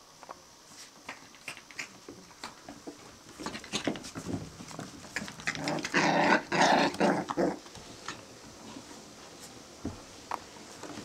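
Australian Terrier puppies play-fighting, with a burst of puppy growling about six seconds in that lasts a second and a half. Scattered light clicks and scuffles from the tussling run around it.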